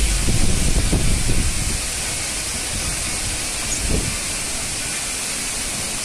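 Large waterfall's steady rushing noise, a dense even hiss, with a few brief low rumbles in the first second and again about four seconds in.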